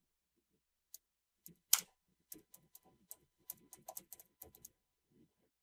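Computer keyboard typing: a run of quick, irregular key clicks, with one louder click a little under two seconds in.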